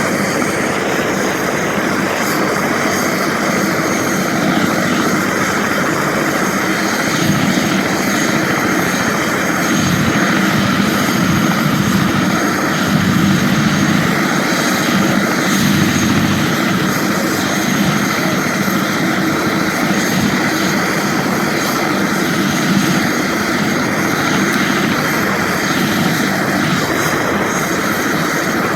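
Helicopter engine and rotor running steadily at close range.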